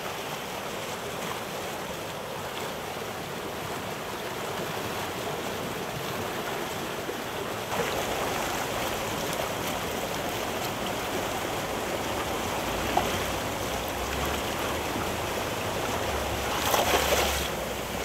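Steady rush of water that changes in character about eight seconds in to shallow water flowing and lapping at a salmon hatchery's edge, where salmon crowd near the surface. Wind buffets the microphone in the later seconds, most strongly near the end.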